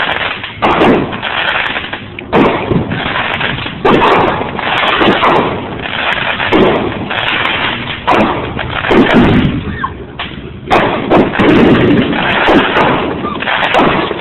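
A consumer firework repeater cake, a 13-shot cake, firing its shots one after another, about one a second. Each shot is a sharp bang that trails off briefly.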